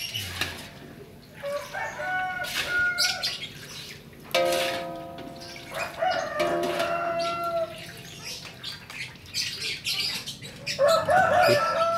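Chickens calling in the background, four drawn-out calls, with short metal clinks of a spider strainer against a wok.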